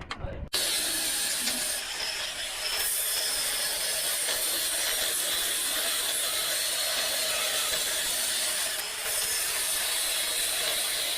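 Power grinder grinding metal: a steady, harsh, high hissing grind that starts about half a second in and eases briefly twice, about two seconds in and near nine seconds.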